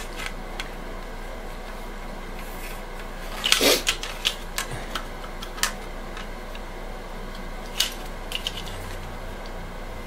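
Light clicks and taps of plastic model-kit floor pieces being handled and set down, with a louder clatter about three and a half seconds in, over a steady low hum.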